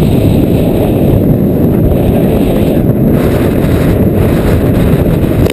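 Strong wind buffeting the camera's microphone in a 20–30 knot breeze, a loud steady low rumble.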